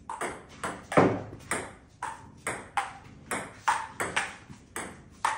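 A table tennis rally: the ball clicking off paddles and bouncing on the table in a quick, even series of sharp ticks, about three a second.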